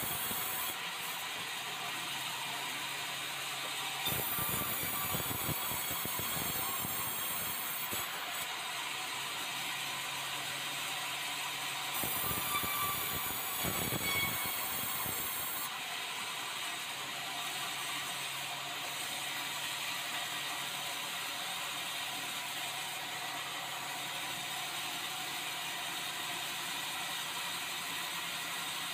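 Band sawmill running with a steady mechanical hum. It gets louder for two stretches of a few seconds each, about four and about twelve seconds in, as red meranti timber goes through the mill.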